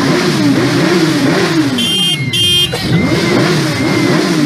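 Several sport motorcycles revving their engines together, the pitch climbing and falling back about twice a second in quick throttle blips. About two seconds in, two short shrill tones cut through above the engines.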